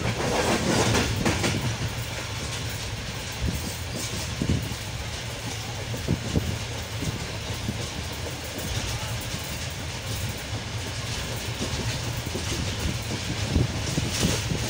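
Passenger train running along the track, heard from inside a carriage by the window: a steady low rumble from the wheels with irregular clicks and clacks over the rails. It is briefly louder near the start and again near the end.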